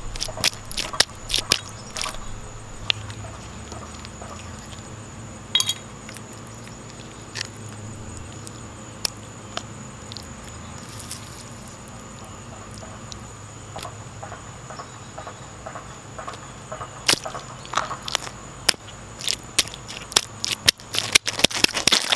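Red gelatin (Jello) being squashed on pavement under a football boot and squeezed by hand: scattered wet squelches and sharp clicks, thickest near the end.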